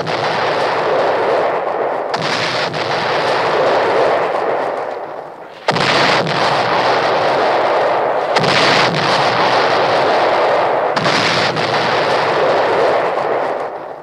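A run of cartoon bomb explosion sound effects. One blast is already sounding, then four more start sharply about every two and a half to three and a half seconds, each trailing off in a long noisy rumble. The last one fades out near the end.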